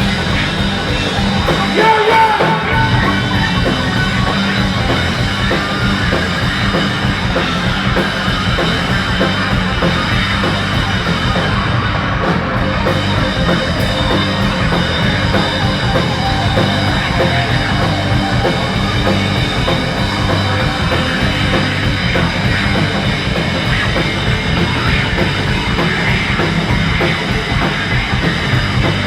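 Live heavy rock band playing loudly, with drum kit and heavily distorted low-pitched guitars, recorded on a phone's microphone close to the stage.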